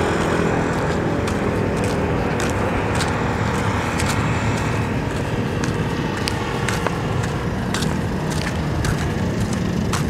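Footsteps on pavement, roughly one step every half second or so, over a steady low rumble of sea wind on the microphone.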